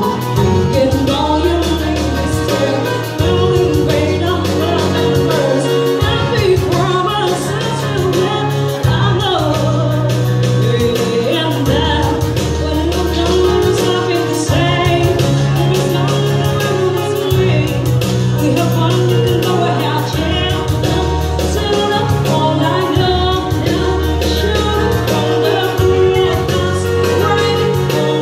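A woman singing a slow song to live electronic keyboard accompaniment (an Indonesian organ tunggal, one-man keyboard band), with held bass notes and a steady drum beat under the voice.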